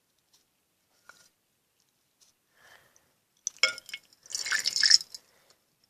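A sharp snip into a water-filled squishy toy about three and a half seconds in, then water spilling and dripping out of it.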